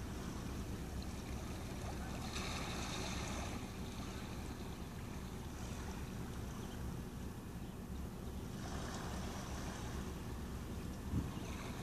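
Harbour shore ambience: a steady low rumble, with small waves washing over the rocks in two brief swells of hiss, and one short low bump near the end.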